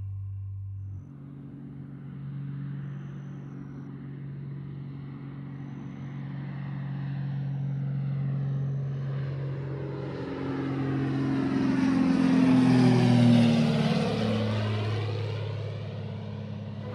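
An airplane flying past: a steady engine drone grows louder to a peak about two thirds of the way through, drops in pitch as it passes, then fades.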